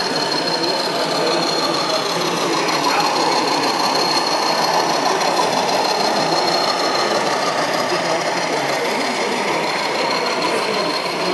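Model diesel locomotive running along the layout track hauling a rake of tank wagons: a steady whirring of the electric motor and the wheels rolling on the rails.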